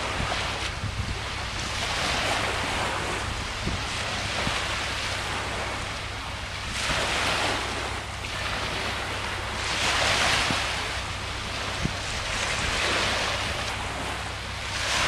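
Small sea waves washing onto a sandy beach, swelling and fading every few seconds, with wind rumbling on the microphone.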